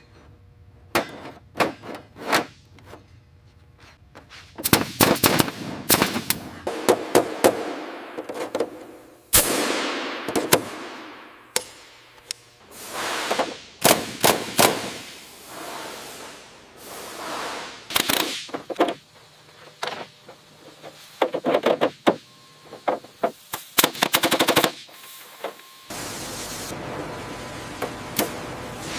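Metal repair work on a jet fuselage's frames: repeated bursts of rapid, sharp metallic blows, broken by stretches of power-tool noise that fade away.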